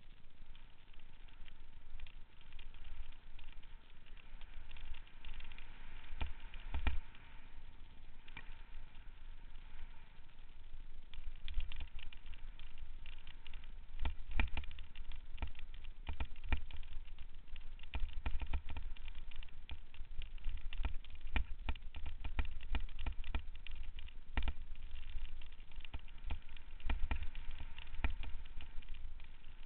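Mountain bike riding over a rough, rocky dirt trail, heard through a handlebar-mounted camera: a low rumble with frequent clicks and clatters as the bike jolts over stones, getting busier and louder about a third of the way in.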